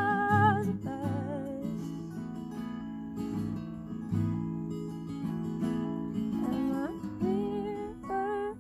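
Two acoustic guitars strummed and picked together, with a woman singing over them in the first second and again near the end.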